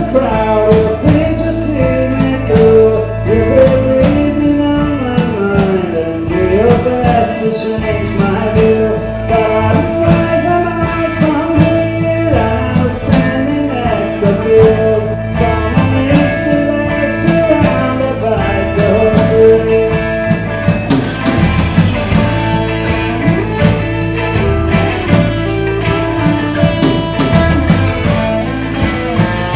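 Live rock band playing: electric guitars over bass guitar and drums, with steady drum and cymbal hits throughout.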